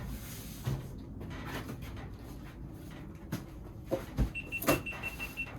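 Cardboard shipping boxes being handled and turned over, with scattered knocks and thumps, the loudest about four and a half seconds in. Near the end comes a short run of rapid high-pitched beeps.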